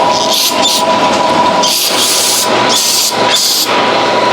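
Aerosol brake cleaner sprayed in four short hissing bursts to rinse off a part, over a steady background hum.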